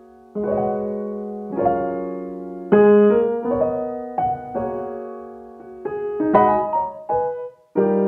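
Background music: keyboard chords, struck about once a second, each ringing and fading before the next, with a brief pause near the end.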